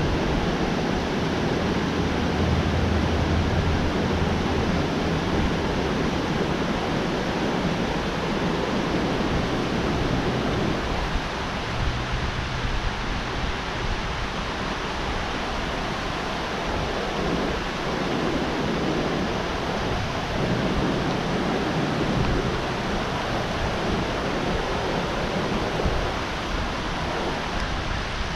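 Steady rushing of water pouring through a dam spillway, with a low rumble under it for the first few seconds.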